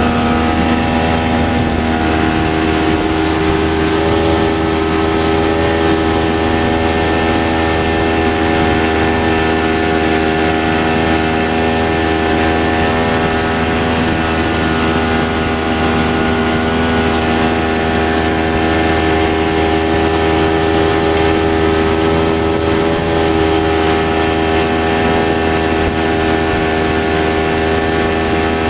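A boat's engine running at a steady, even speed.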